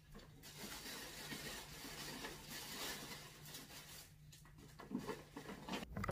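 Tissue paper rustling as it is handled and tucked into a paper gift bag, lasting about three and a half seconds, then a few faint clicks and bumps near the end.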